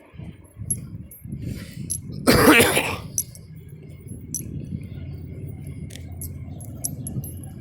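A single loud, harsh cough about two seconds in, an allergy cough blamed on pollen. Faint light clinks and a steady low rumble run underneath.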